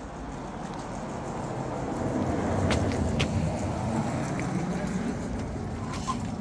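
A road vehicle passing on the street: a low rumble that swells about two seconds in and slowly fades, with a couple of footstep clicks.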